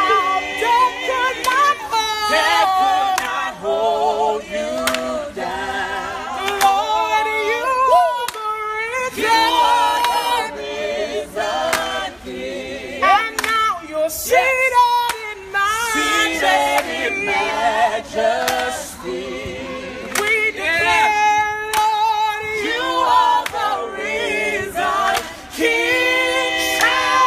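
A small group of voices singing a worship song unaccompanied, the held notes wavering with vibrato.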